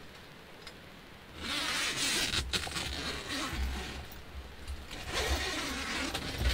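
Rooftop tent door being unzipped: a zipper rasping in two long pulls with tent fabric rustling, starting about a second and a half in, over a low rumble of handling.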